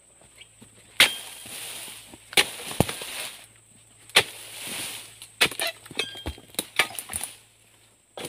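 Steel harvesting chisel on a long pole chopping into the bases of oil palm fronds. Three hard strikes, each followed by about a second of rustling as the fronds give way, then a quicker run of lighter knocks.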